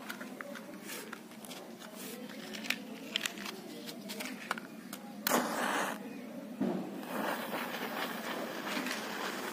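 A few light handling clicks, then a match struck on a matchbox flares with a short loud hiss about five seconds in. From about seven seconds a fuse stuck in a padlock's keyhole burns with a steady hiss.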